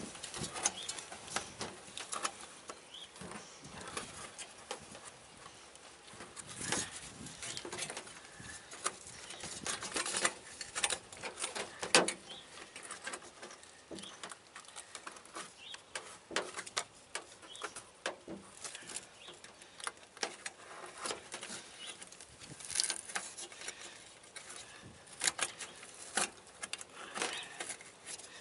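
Irregular scraping, crinkling and clicking of thin sheet metal as a round metal vent collar is worked by hand into a hole in a sheet-metal panel and its edges are crimped with the fingers. A sharper knock about twelve seconds in.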